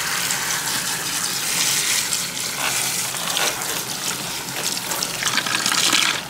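Salon shampoo-bowl hand sprayer running, water spraying and splashing over a wig in the sink as the bleach is rinsed out of it. It is a steady rush of water that grows louder for a moment near the end.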